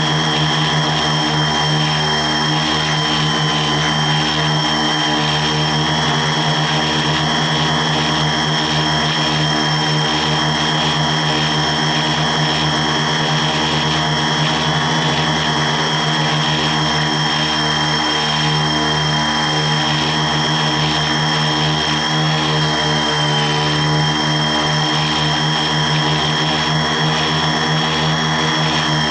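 Quadcopter's electric motors and propellers running steadily in flight, heard up close from the craft itself: a constant hum with several high whining tones that waver slightly in pitch.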